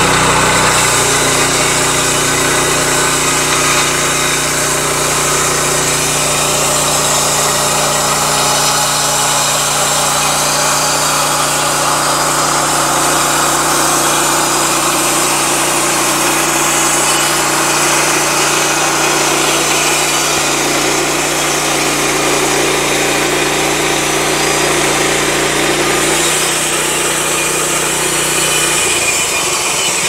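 Pascal Métal portable bandsaw mill running, its small gasoline engine driving the band blade through a log: a loud, steady engine drone under a high sawing hiss. The engine note changes near the end.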